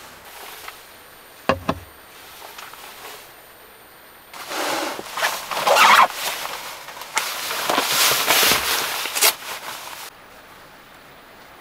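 One sharp knock about a second and a half in, then about six seconds of loud, irregular rustling and crackling with clicks as a person moves about close by in a small van's cabin.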